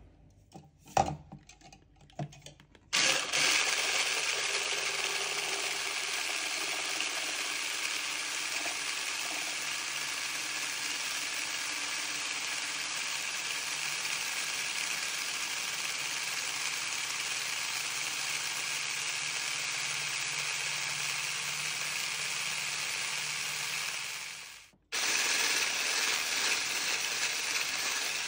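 Hand blender with a whisk attachment whipping cold heavy cream in a plastic beaker. A few clicks and knocks first, then a steady motor whine from about three seconds in, which cuts out briefly near the end and starts again.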